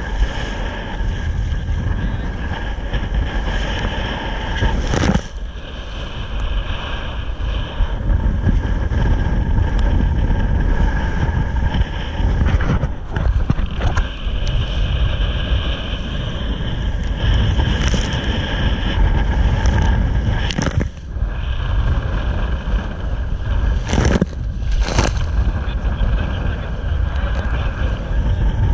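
Wind buffeting the microphone of a camera aboard a Soling keelboat under sail, over the steady rush of water along the hull, with a few sharp knocks.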